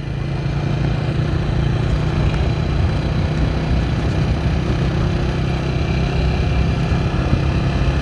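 A vehicle on the move: steady engine hum at an even pitch over a low road rumble.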